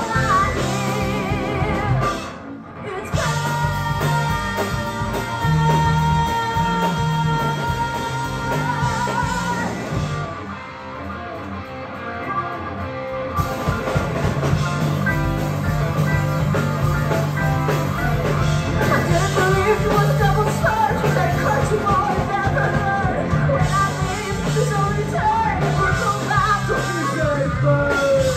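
Live rock band playing loud, with electric guitars, bass, drums and keyboard and a singer's voice over them. Steady held notes ring out a few seconds in, the band thins out briefly about ten seconds in, then a wavering, bending lead line runs through the second half.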